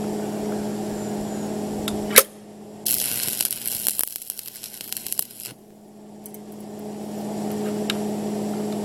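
Shielded metal arc (stick) welding with a 7018 electrode at about 80–85 amps: the arc crackles and sizzles for about two and a half seconds while a tack weld is laid. A steady hum and a sharp click come just before the arc strikes.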